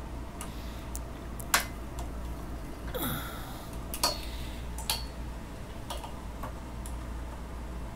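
Scattered light clicks and knocks of a mouse cable and its plug being handled and swapped, the strongest about a second and a half in, over a steady low hum of equipment from the server room next door.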